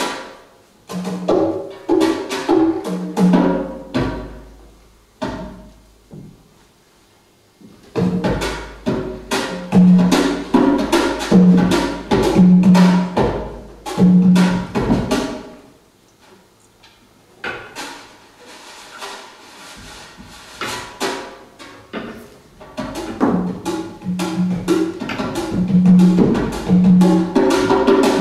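Live percussion-led music: a rhythmic pattern of sharp hand-drum and wood-block-like strikes with pitched knocks over low sustained bass notes. It plays in phrases, with two short breaks.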